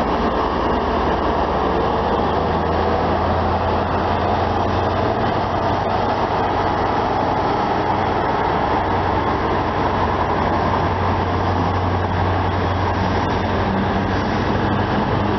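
High Speed Train pulling out, its Class 43 diesel power car giving a steady low drone while the Mark 3 coaches roll past over the rails.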